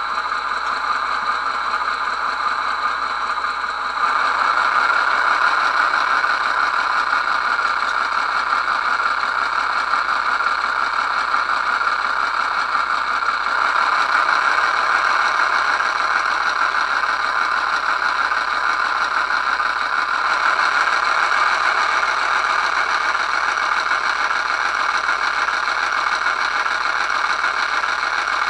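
QSI sound decoder playing a recorded ALCO 244 diesel engine through an HO-scale model locomotive's small speaker. The engine runs steadily and steps up in loudness about four seconds in, with a further change in tone around the middle.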